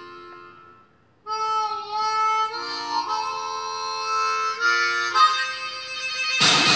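Harmonica playing a tune in held chords, fading out about a second in and then starting again, heard from a film soundtrack played on a TV. A sudden loud clatter breaks in near the end.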